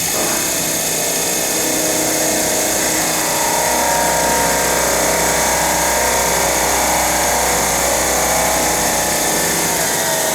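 Cue lathe running while a drill bit is fed into a spinning G-10 blank. About three seconds in the sound deepens and a steady whine comes in as the bit cuts into the hard material.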